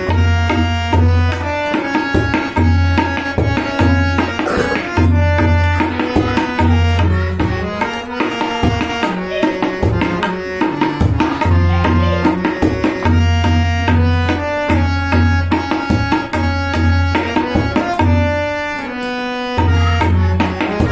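Tabla solo in teentaal: a kayda played as a fast, even stream of strokes on the dayan and bayan. The bayan's deep bass strokes come and go in phrases, dropping out for a stretch near the end.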